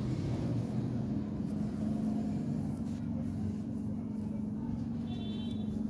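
A steady low mechanical hum, like an engine or motor running, with a short high-pitched tone near the end.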